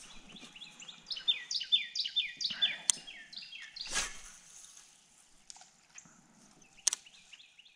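A songbird singing a rapid run of short, high, down-slurred notes for about three seconds, then a shorter run near the end. A few sharp clicks fall in between.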